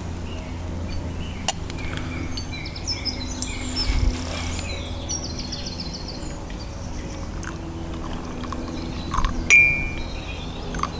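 Birds chirping over a steady low rumble, with a few sharp metal clinks. The loudest, a brief ringing clink, comes about nine and a half seconds in.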